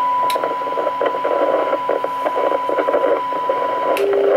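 GE Rangr mobile two-way radio on receive, its speaker playing a signal generator's steady high test tone over crackling static and a few sharp clicks. Near the end the tone cuts to a steady lower one. The crackle comes from the signal generator.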